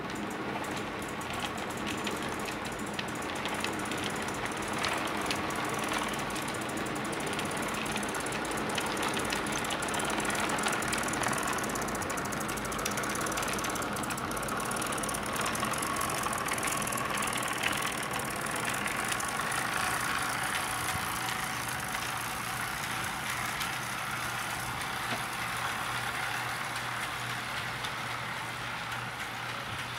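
HO scale model train running along the track: a steady electric motor hum and whine, with fine rapid clicking of the wheels over the rail joints. The whine swells through the middle and eases off towards the end.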